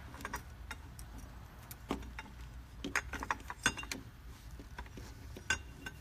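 Scattered light clicks and clinks of small wire leads and metal terminals being handled and pushed onto a floor edger's replacement switch. The clicks come irregularly, in small clusters.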